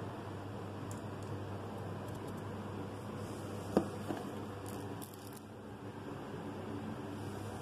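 Quiet handling of scone dough wedges on butter paper over a steady low room hum, with one sharp tap a little under four seconds in.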